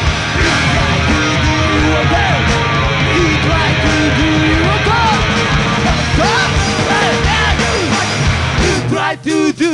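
Punk rock song played by a band: distorted guitars, bass and drums under a shouted, sung lead vocal. The band stops short twice for a moment near the end.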